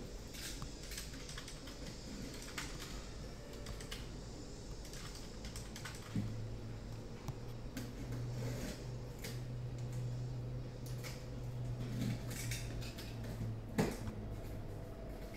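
Irregular light clicks and taps, much like keyboard typing, with a steady low hum from about six seconds in until near the end.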